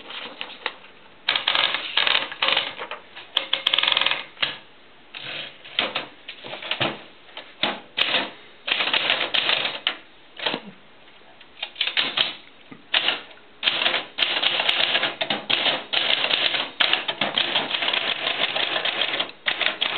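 East German Erika mechanical typewriter being typed on: keys and typebars striking the platen in quick irregular runs, with short pauses between bursts.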